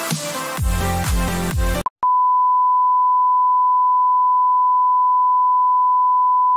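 Electronic intro music that cuts off about two seconds in, followed by a loud, steady single-pitch test tone: the beep that goes with television colour bars.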